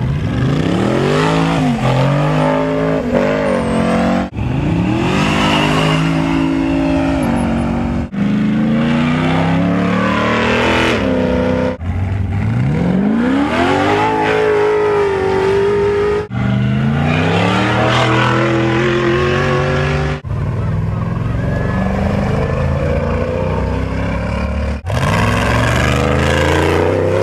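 Ultra4 off-road race buggies launching from the start line one after another, their engines revving hard, each note climbing in pitch as the buggy accelerates away. The sound breaks off abruptly and starts on a new launch about every four seconds.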